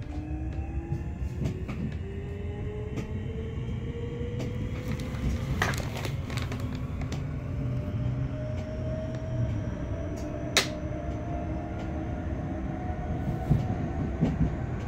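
Class 465/1 Networker electric multiple unit's Brush/Hitachi traction motors whining under full power as the train pulls away, several tones rising steadily in pitch as it accelerates to about 25 mph, heard inside the passenger saloon. Under the whine is a low running rumble, with a few sharp clicks.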